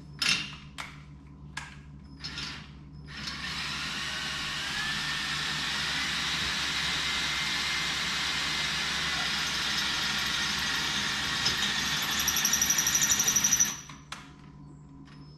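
A few sharp clicks, then a power drill with a metal drill bit runs steadily for about ten seconds, boring into the head of a stripped screw. For its last second or so it chatters rapidly before stopping suddenly.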